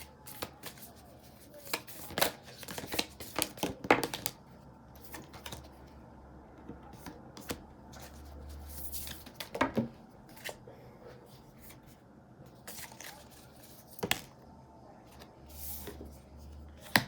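Tarot cards being shuffled and handled: irregular quick flicks and slaps of cards, bunched in bursts with short pauses between them.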